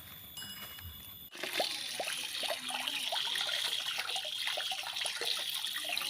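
Running water splashing and trickling, starting suddenly about a second in and running steadily: leaves being rinsed clean under the water.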